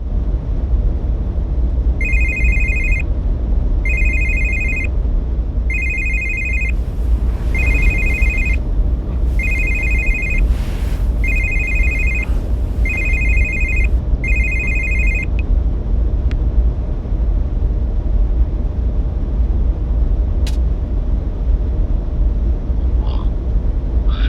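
A telephone ringing: eight rings of about a second each in an even rhythm, stopping about fifteen seconds in. A steady low rumble runs underneath.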